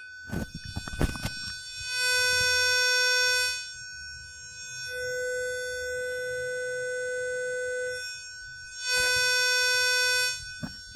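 The Amiga 600's sine-wave test tone played through headphones. It comes as a harsh, buzzy tone for about a second and a half, then a purer, quieter tone for about three seconds, then the buzzy tone again near the end, with a few handling knocks at the start. The buzzy version is the distorted channel: the audio filter stage is still faulty after the op-amp replacement.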